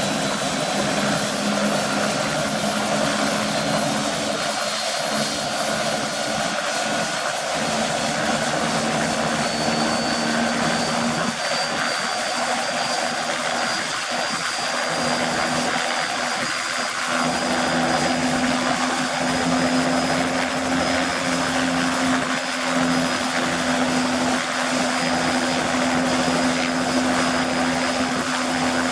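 Bell 206B-III JetRanger helicopter running, its Allison 250 turboshaft whining high over the rotor. The pitch steps up about ten seconds in and again, a little louder, after about seventeen seconds, as the engine and rotor speed up.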